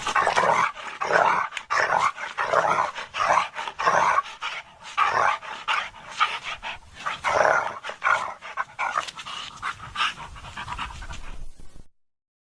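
A dog panting and making short, rough vocal sounds, a quick run of bursts a few times a second that cuts off abruptly near the end.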